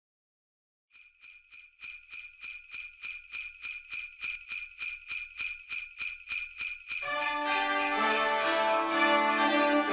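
Sleigh bells jingling in a steady rhythm, about three shakes a second, growing louder over the first few seconds. About seven seconds in, Christmas music with sustained notes comes in under the bells.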